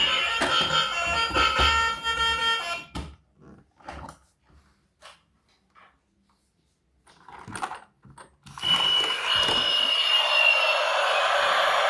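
Electronic sound chip of a toy vehicle playing a siren-like alarm tone that stops about three seconds in. A few scattered clicks follow, then a louder, hissy electronic sound with a slowly falling whistle starts about eight and a half seconds in.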